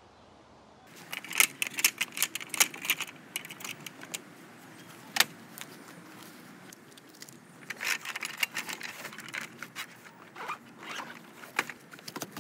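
Camping gear being packed away by hand: a storage bag's zipper being worked and fabric rustling, in two bouts of quick rasping clicks with a single sharp click between them.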